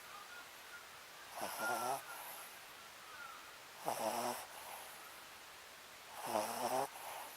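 Papillon dog snoring in her sleep: three snores, one about every two and a half seconds, each lasting about half a second.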